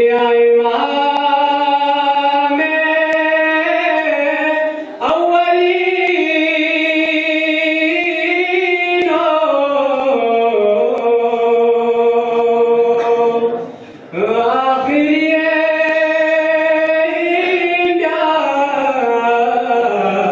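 A solo young man's voice singing a Balti qasida in long held notes that step slowly up and down, pausing briefly for breath about five and fourteen seconds in.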